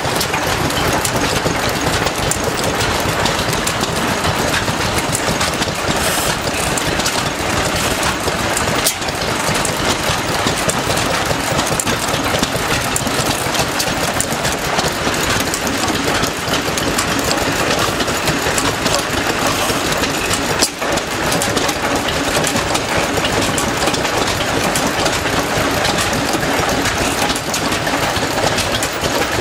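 Vintage stationary engines running together, a loud, steady, dense mechanical clatter of rapid firing and knocking with no break.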